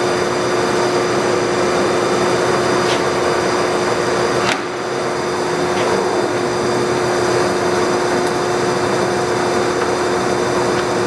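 A 1957 Monarch Series 90 Dyna-Shift heavy-duty lathe running with its spindle turning at 31 RPM: a loud, steady machine hum with a steady tone. There is a sharp click about four and a half seconds in, as the level dips briefly.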